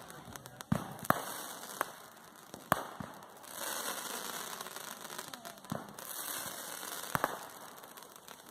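Fireworks going off: a run of sharp bangs at irregular intervals, with stretches of crackling between them.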